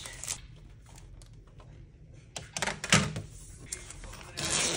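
Things being handled by hand: a few light clicks and taps, a louder knock about three seconds in, and a short rustle near the end.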